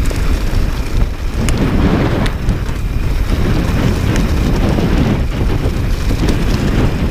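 Mountain bike rolling fast down a dry, stony dirt trail, with wind buffeting the microphone and the tyres rumbling over loose gravel; small sharp clicks and ticks from stones and the bike come every second or so.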